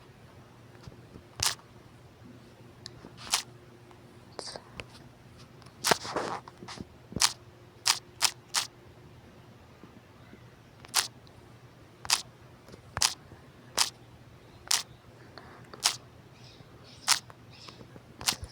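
About fifteen short, sharp clicks at irregular spacing over a faint steady low hum.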